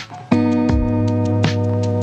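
Background music: plucked guitar-like notes over a held chord, after a brief dip at the very start.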